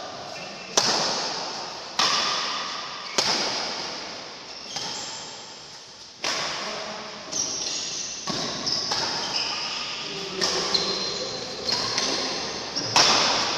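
Badminton rally: rackets strike the shuttlecock in a string of sharp cracks, each ringing on in the hall's echo. The hits come about once a second at first and quicken after the middle, with short high squeaks between them.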